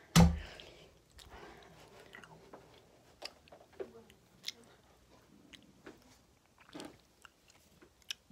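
Handling noise from a phone being carried: a loud knock just after the start, then scattered soft clicks and rustles of fabric against the microphone.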